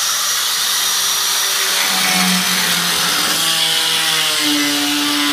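Handheld power tool running loud and steady, with a motor whine that comes in about two seconds in and rises in pitch toward the end.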